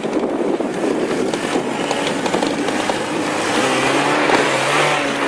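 Lada Niva's engine revving hard under load as it pushes through deep snow, its pitch climbing over the last couple of seconds.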